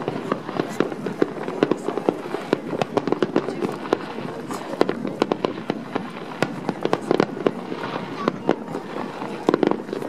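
Aerial fireworks display: shells bursting in quick succession, a dense run of sharp bangs and crackles at irregular intervals.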